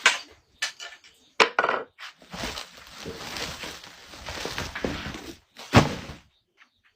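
Close handling noise: rough rustling and crackling with several sharp snaps, the loudest about six seconds in.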